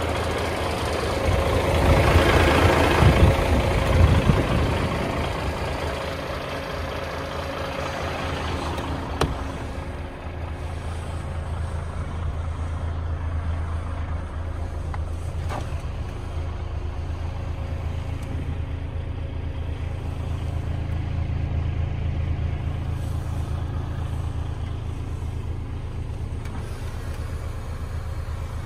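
DAF XF 106.460 truck's PACCAR MX-13 six-cylinder diesel idling steadily. Over the first several seconds a loud rushing noise with a few knocks rides over the idle. After that the idle goes on quieter, heard from inside the cab.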